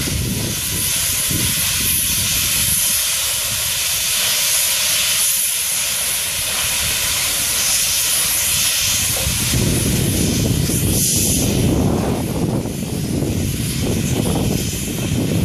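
Steam train pulling away with its coaches rolling past: a steady, loud hiss of escaping steam. About ten seconds in, a low rumble builds up as the hiss fades.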